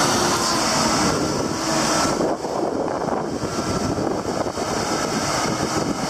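Diesel engine of a Link-Belt RTC-80100 rough-terrain crane running steadily at idle.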